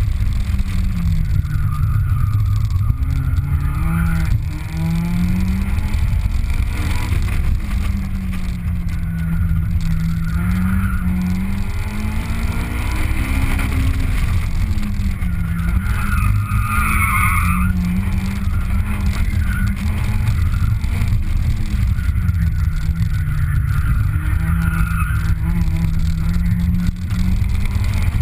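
Honda S2000's four-cylinder engine heard from inside the open cockpit during an autocross run, revving up and falling back again and again through the cone course. Tyres squeal briefly in the corners several times, most strongly a little past the middle.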